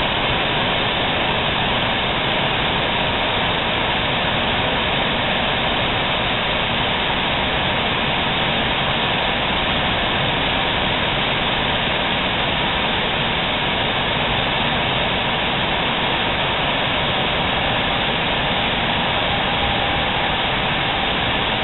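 Steady hissing roar of the Messer Griesheim Statosec P6500 CNC cutting machine's row of oxy-fuel torches, their flames burning above the steel plate.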